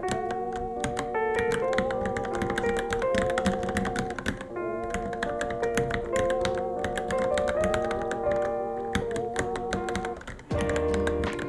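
Rapid, steady typing on a Varmilo Minilo keyboard, many key clicks a second, over background music with a sung-like melody. Near the end the music pauses briefly and returns with a low bass line.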